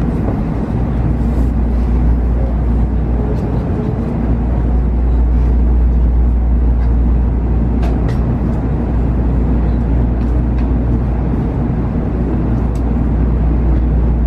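Tokaido Shinkansen running noise heard inside the passenger car: a steady low rumble with a few faint clicks.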